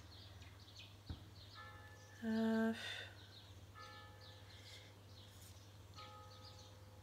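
Small birds chirping over and over in the background, over a low steady hum. A few faint held musical notes come at intervals, a single soft knock sounds about a second in, and one louder short held tone comes a little after two seconds.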